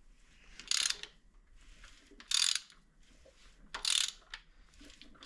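Ratchet wrench clicking in three short bursts about a second and a half apart, as the Passat B5 1.8T engine's crankshaft is turned over by hand after a new timing belt has been fitted, to check the timing marks.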